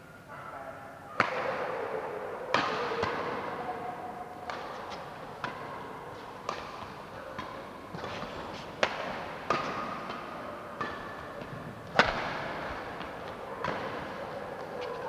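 Badminton rackets striking a shuttlecock back and forth in a doubles rally, about ten sharp hits spaced one to two seconds apart, each ringing briefly in the hall. The hardest hits come about a second in and about twelve seconds in.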